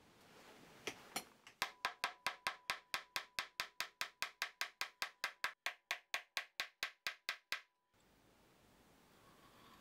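A small hammer tapping carbon fibre nut blanks down into epoxy-filled slots in a guitar headstock: two single taps, then a fast, even run of about six light taps a second, each with a short ring, lasting some six seconds and stopping abruptly.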